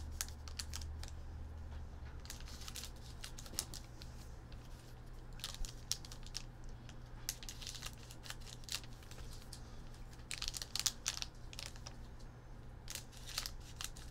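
Plastic wrapper of a baseball card pack crinkling as it is handled and snipped open with scissors: a string of irregular crackles and sharp clicks, over a steady low hum.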